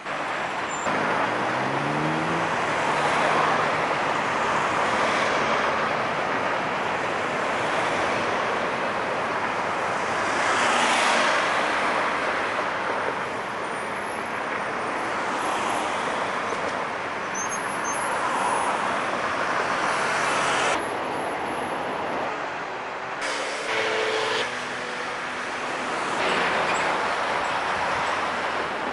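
Road traffic: cars, vans and trucks passing in a steady rush of engine and tyre noise, with one engine note rising in pitch as a vehicle accelerates about a second in.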